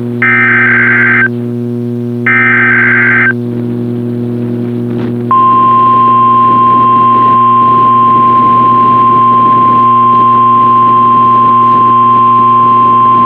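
Emergency Alert System SAME header of a Required Weekly Test: two one-second bursts of buzzy data tones about a second apart. About five seconds in, the steady 1050 Hz NOAA Weather Radio warning alarm tone begins and holds. A steady low hum runs underneath.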